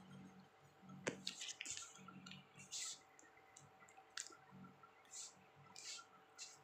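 Wet chewing and lip-smacking while eating barbecued meat: a scatter of soft, sharp mouth clicks at irregular intervals, the first and loudest about a second in.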